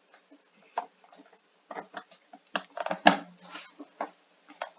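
Irregular small clicks and taps, most of them bunched in the middle.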